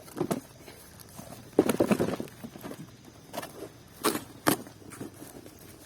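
A cardboard box and its packaging being handled and opened: rustling and knocks about two seconds in, then two sharp clicks about four seconds in.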